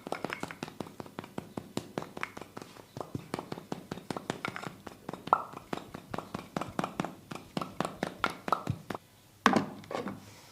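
Hands tapping and slapping on the body in a quick percussive massage, about five strokes a second. Near the end the strokes pause briefly, then one louder, heavier slap lands.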